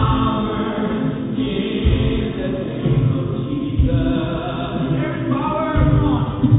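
A group of voices singing a worship song together, with low accompaniment underneath.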